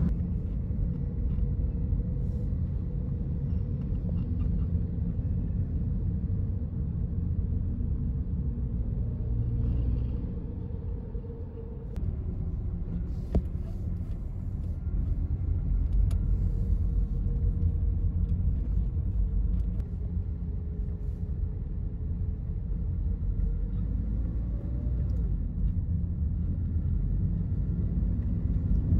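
A car driving on city roads, heard from inside the car: a steady low rumble of tyres and engine.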